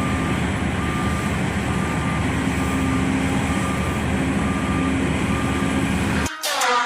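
Heavy mining machinery running steadily, with a reversing alarm giving short high beeps at an even pace, a little faster than once a second. Near the end the sound cuts off abruptly into rap music.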